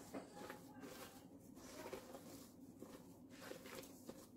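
Faint, irregular soft swishes of a spatula folding whipped cream into cream cheese in a mixing bowl.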